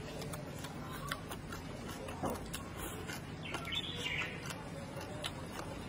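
A person chewing a mouthful of food, with small wet mouth clicks scattered throughout. A brief high chirp comes a little before four seconds in.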